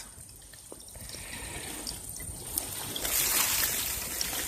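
Water trickling in a small, nearly frozen stream, growing louder about three seconds in.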